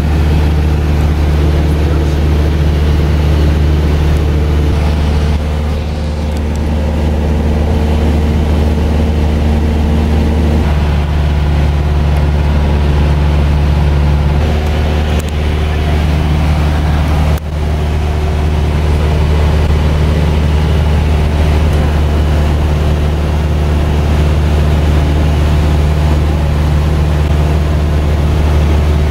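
Cessna 172 S's four-cylinder Lycoming engine and propeller droning steadily in cruise flight, heard inside the cockpit, with one brief click about two-thirds of the way through.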